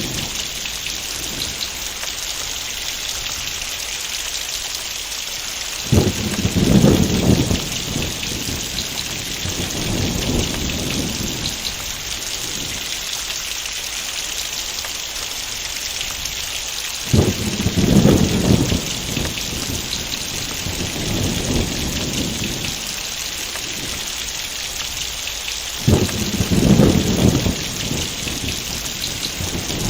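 Heavy rain falling steadily, with three rolls of thunder about ten seconds apart. Each roll starts suddenly and rumbles for a few seconds before fading back under the rain.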